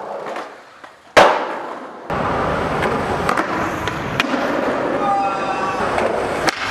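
Skateboard sounds: one sharp, loud slap of a board hitting hard ground about a second in, with a short ringing tail, then wheels rolling hard over concrete with several sharp clacks of the board popping and landing.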